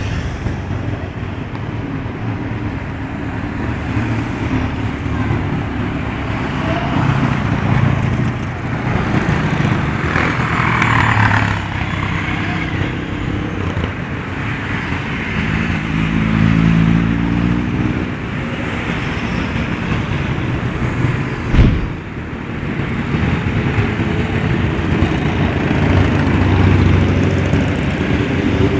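Motorcycle engines running and revving in road traffic, the engine pitch rising and falling, with one sharp thump a little after twenty seconds in.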